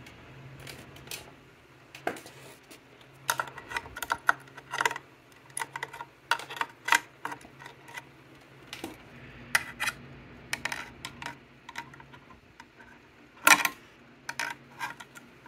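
Irregular light metallic clicks and taps as the throttle cable and its fittings are handled at the scooter's carburetor, with one louder clack near the end. The cable comes up short of its hook on the carburetor.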